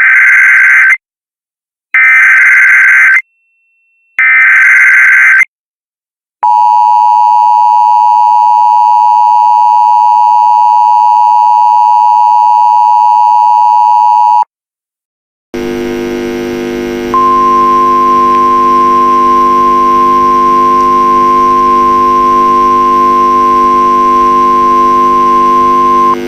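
Emergency Alert System tones: three short screeching bursts of SAME header data, then the EAS two-tone attention signal held for about eight seconds. After a short break a steady hum starts, and a single long steady tone sounds over it for about nine seconds before cutting off.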